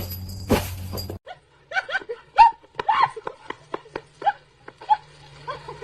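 Two sharp knocks over a low hum in the first second. Then a pet animal gives a rapid run of short, high calls, a dozen or more in a few seconds.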